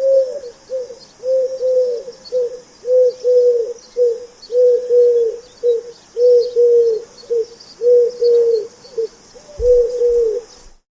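Pigeon cooing in a repeated rhythmic phrase of low, rounded coos, two longer notes then a short one, over and over, then cutting off near the end.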